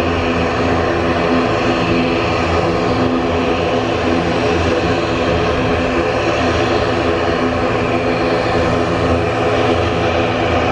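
Twin-turboprop military transport aircraft's engines and propellers running at a steady pitch as it taxis along the runway, a loud, even propeller drone.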